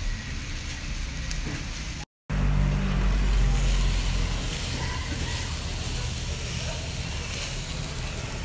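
Steady street noise with a low traffic rumble, cutting out for a moment about two seconds in.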